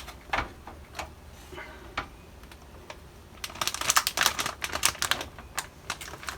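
A motherboard's plastic packaging being handled: a few separate clicks, then a dense run of crinkling and clicking from about three and a half seconds in that stops about a second later.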